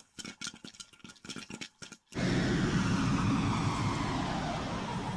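Cinema sound-effect demo: a run of irregular crackling clicks for about two seconds, then a sudden loud, deep rumbling blast that slowly dies away.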